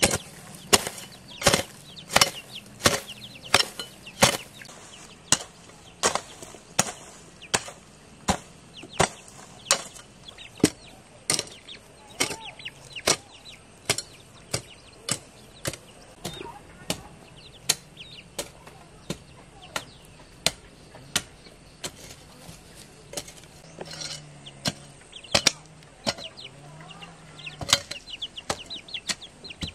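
Metal hoe blade chopping into grassy, dry soil in a steady rhythm of sharp strikes, roughly three every two seconds.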